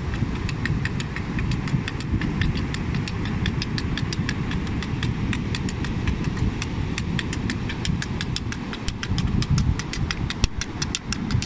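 Wind buffeting the microphone in a continuous low, gusty rumble, with a rapid run of faint, light clicks, several a second, over it.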